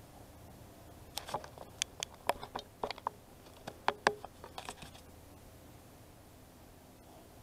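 A quick run of light clicks and clacks over about four seconds as a wooden-handled hoe with a fork-tine head is lifted and handled against the mobility scooter, its metal head knocking.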